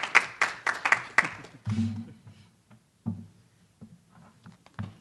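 A small group clapping in distinct, fairly even claps that die away about a second and a half in, followed by a few soft low thumps.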